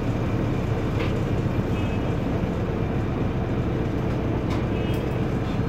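Steady low drone inside an Otokar Doruk 190H city bus cabin from its Deutz Euro 4 turbo-diesel engine running.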